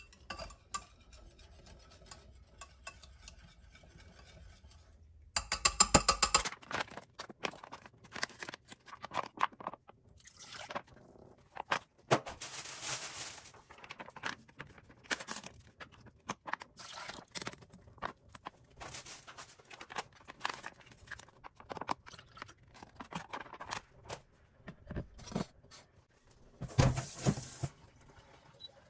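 Kitchen cooking sounds: irregular clicks and clatter of utensils and cookware. About six seconds in there is a quick run of sharp knocks, and another loud clatter comes near the end.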